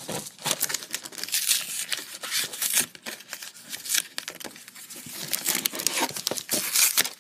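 A Pokémon TCG booster pack's foil wrapper being torn open and crinkled by hand: irregular crackling and ripping.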